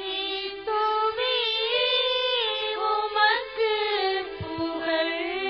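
A high voice sings a short melodic liturgical response over held keyboard chords. This is the sung acclamation that follows the Gospel reading at a Catholic Mass.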